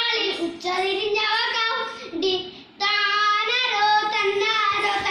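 A boy singing a Malayalam nadan pattu folk song, unaccompanied, in long held phrases with a short break for breath about two and a half seconds in.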